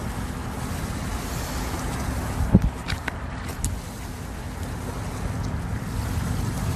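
Steady low outdoor rumble, like wind on the microphone. A single sharp knock comes about two and a half seconds in, followed by a few quick clicks over the next second, as from handling the fishing rod and reel.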